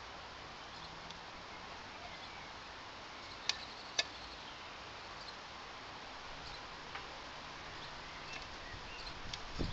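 Quiet steady background hiss with two light, sharp clicks about half a second apart a little past the middle, from small parts and a pick being handled at an open diesel filter housing.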